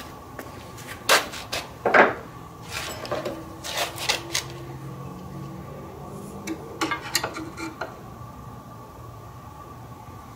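Scattered metallic clinks and knocks of tools being handled on the circular saw's metal shoe, the loudest about one and two seconds in, over a faint steady high hum.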